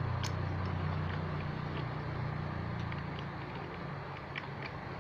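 Low, steady engine hum from a vehicle running in the background, fading after the first couple of seconds. Scattered light metallic clicks come from small gearbox parts being handled and fitted.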